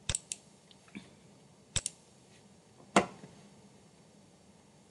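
Several sharp computer mouse clicks, some in quick pairs, the loudest about three seconds in.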